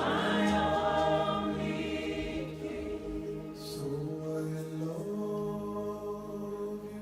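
Slow gospel worship music: voices sing long held notes over sustained chords.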